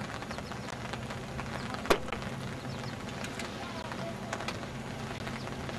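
Distant passenger train approaching: a low, steady rumble under outdoor ambience, with one sharp click about two seconds in.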